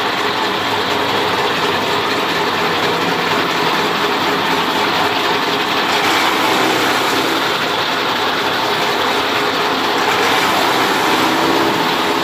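Chaff cutter running steadily while green fodder is fed in and chopped by its blades: a loud, even mechanical noise that does not let up.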